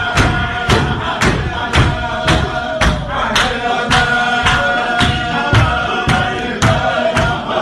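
Group of men chanting a zikr, with held notes, over a sharp steady beat of about two strokes a second from the crowd.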